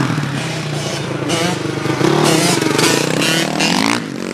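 Dirt bike engine revving hard as it rides close by, its pitch climbing and held high, then dropping off suddenly near the end.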